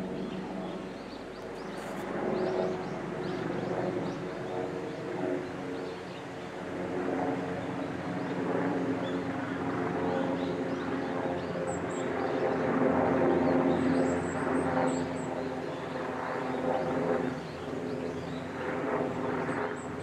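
Steady engine drone made of several steady tones, swelling and fading, with a few faint high chirps around the middle and near the end.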